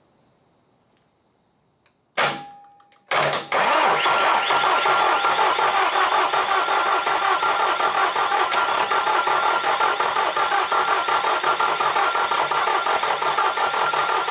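A sharp click about two seconds in, then the 2010 Bobcat T320's diesel engine cranking steadily on its starter motor for about eleven seconds without catching, and stopping: the engine turns over but does not start.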